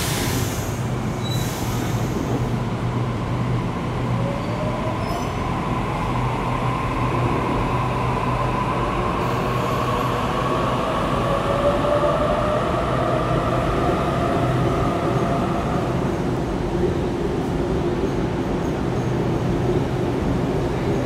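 Double-deck Sydney Trains electric train pulling out of the platform and gathering speed. A short hiss comes in the first couple of seconds, then the traction motors' whine rises steadily in pitch as it accelerates, over a steady low hum.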